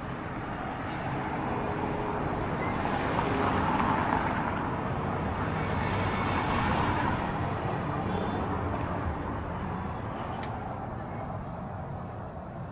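Street traffic: vehicles passing, the noise swelling as one goes by about four seconds in and another around the middle.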